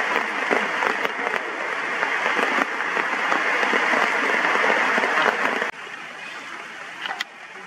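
Heavy rain coming down hard as a dense, steady hiss, which drops suddenly to a much quieter hiss about six seconds in.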